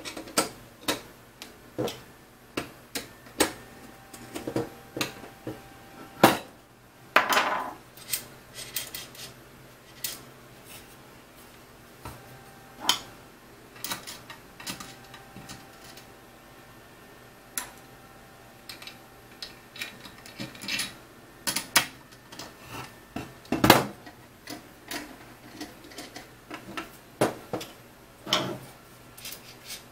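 Irregular clicks and clinks of small steel M5 screws and T-slot nuts being handled, and a hand screwdriver driving screws into the printed corner brackets of an aluminum-extrusion frame.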